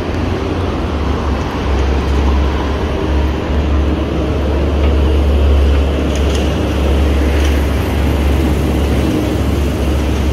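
Steady city street traffic noise with a heavy low rumble throughout.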